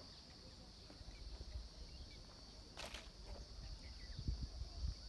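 Steady high-pitched drone of insects, with low gusty rumbles of wind on the microphone that grow stronger near the end, and a brief rustle about three seconds in.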